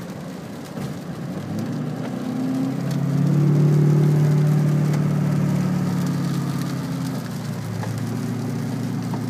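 Car engine running on the road, heard from inside the vehicle, rising a couple of seconds in, loudest in the middle and easing off again near the end.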